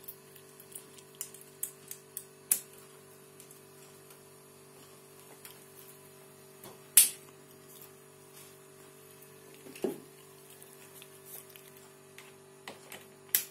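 Scattered clicks and knocks of a hand coffee grinder being seated in a wooden wall stand and a cordless screwdriver fitted onto its shaft, the sharpest click about seven seconds in. A faint steady hum runs beneath.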